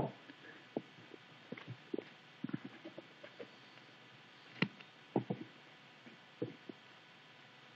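Faint, scattered knocks and taps from things being handled, about half a dozen, the loudest a little past halfway through.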